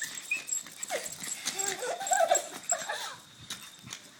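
Yorkshire terriers whining and yipping in short rising and falling calls as they play-tussle, amid quick light clicks.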